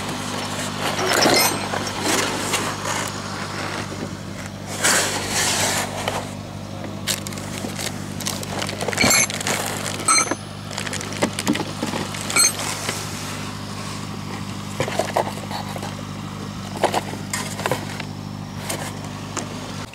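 A steady low motor hum, like an engine running, with scattered sharp clicks, knocks and scrapes over it.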